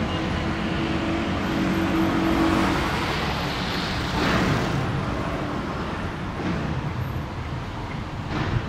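Road traffic: a continuous low rumble of vehicles, with a steady low hum in the first few seconds and cars swelling past about four seconds in and again near the end.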